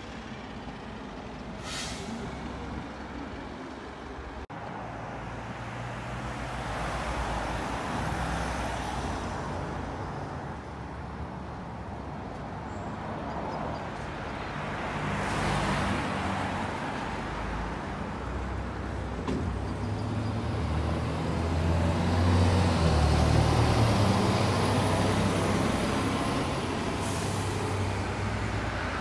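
Single- and double-deck diesel buses pulling away and driving past, their engines running and building as they accelerate. Sharp air-brake hisses come about two seconds in and again near the end. The engine sound is loudest about three-quarters of the way through as a double-decker passes.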